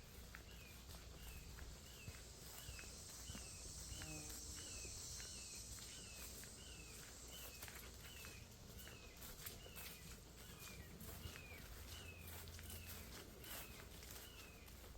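A bird repeats one short, down-slurred note about twice a second, with soft footsteps on a trail beneath it.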